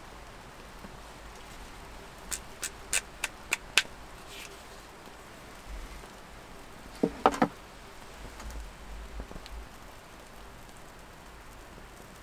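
A handheld gas lighter clicked repeatedly to light a small pocket stove: a quick run of six sharp clicks, then three more a few seconds later.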